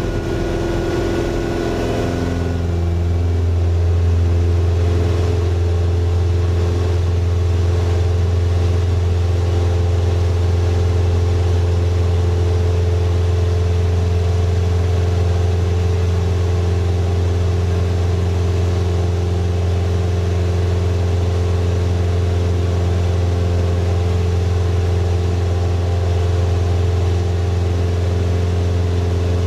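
Single-engine floatplane's engine and propeller heard from inside the cockpit, throttled up about two seconds in and then running steadily at high power.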